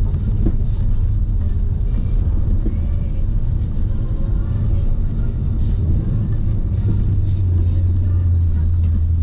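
Steady low drone of a Škoda car's engine and tyres, heard inside the cabin while driving on a snow-covered road.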